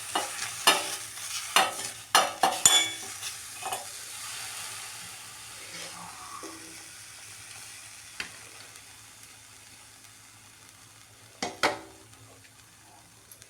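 Holy basil and Indian borage leaves sizzling in a pan, the sizzle fading away with the stove just switched off. A spatula scrapes and taps against the pan several times in the first three seconds, once more in the middle and twice near the end.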